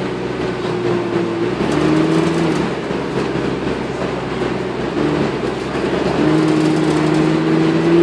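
Dennis Dart single-deck bus heard from inside the saloon while driving: the drivetrain gives a pitched hum that dips and rises at about one and a half seconds, fades for a few seconds, then returns steady about six seconds in, over road rumble and interior rattles.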